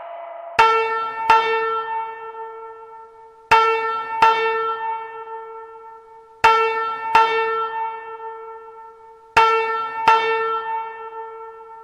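FireCom 8500 fire alarm system sounding its bell-like chime signal: two strikes close together, repeated about every three seconds, four times, each pair ringing out and fading before the next.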